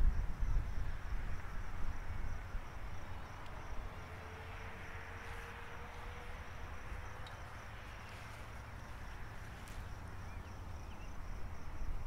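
Wind buffeting the microphone as a low rumble that eases after about two seconds and builds again near the end, over steady high-pitched insect chirping.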